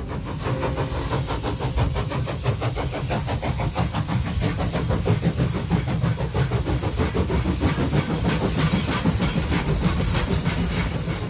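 A vehicle engine idling close by, a steady, rapid, even clatter with a high hiss over it. The likely source is the light truck parked right behind the sign.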